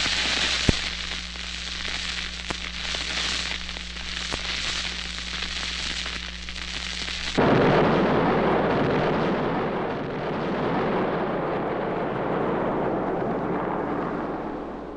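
A burning fuse hisses and crackles for about seven seconds. Then a sudden explosion goes off, and its long rumble slowly dies away.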